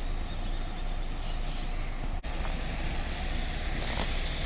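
Road traffic: a vehicle engine running nearby, a steady low rumble, with a sudden brief dropout about two seconds in.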